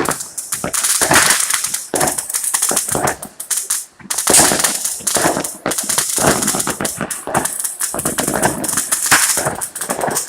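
Fireworks and firecrackers going off in rapid, overlapping succession: a dense string of sharp bangs and crackles, with brief lulls about four and eight seconds in.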